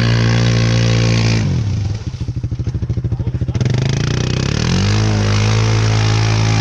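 ATV engine revving high, dropping to a lumpy idle about a second and a half in, then revving up again around the five-second mark and holding high.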